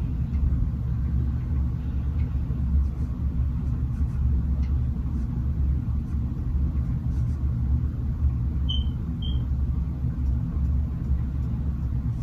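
Steady low rumble throughout, with two short high-pitched chirps about nine seconds in.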